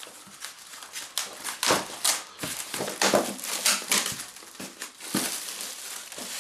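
Packaging being handled: a polystyrene foam tray lifted and shifted in its cardboard box, giving irregular bursts of crinkling and scraping.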